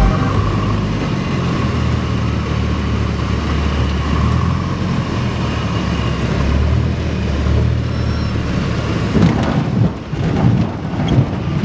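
Light bush plane's piston engine and propeller droning steadily, heard from inside the cockpit. Near the end, irregular knocks and rattles come through as the plane comes down onto the gravel airstrip.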